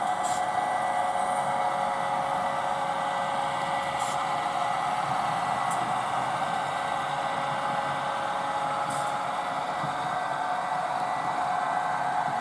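HO scale model train running at a steady speed: an even whirring whine from the motor and wheels on the track, with a few faint ticks.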